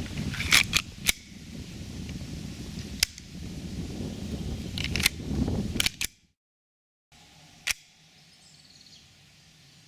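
Sharp plastic-and-metal clicks, six in all, as the WE G18C Gen4 gas blowback airsoft pistol's slide assembly is handled and fitted back onto the frame, over a steady low rumble. After a brief silence, one sharp shot from the pistol near the end.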